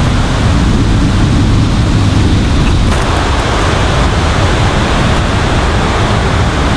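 Loud, steady rush of wind noise with no speech or music.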